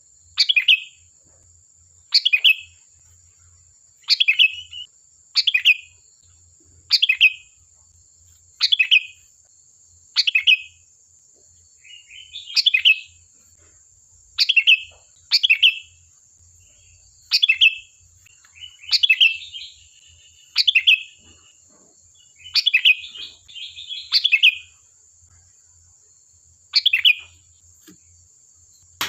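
Sooty-headed bulbul (kutilang) calling in short, bright chirps, repeated about every one to two seconds, some coming in quick pairs or a short run. A faint steady high-pitched whine runs underneath.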